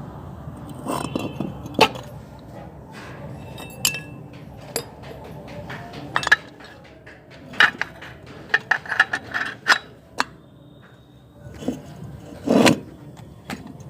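Metal tools and engine parts clinking and scraping during a motorcycle engine teardown: a string of irregular sharp clinks, with a louder, longer clatter near the end.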